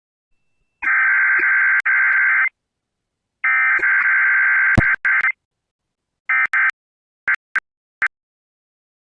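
Emergency Alert System SAME data bursts, the harsh buzzing digital header tones sent before a weather alert. Two long bursts start about one and three and a half seconds in, then shorter broken fragments and three quick blips with clicks.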